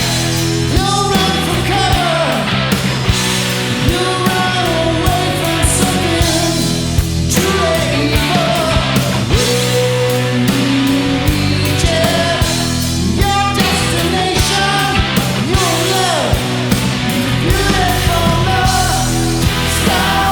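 Instrumental rock music: a steady drum beat and sustained bass notes under a lead line that bends up and down in pitch, with no singing.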